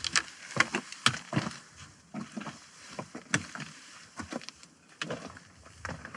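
A hiker's boots stepping on rock, with sharp clicks of trekking-pole tips striking stone at an irregular pace. The sounds grow fainter as the hiker climbs away.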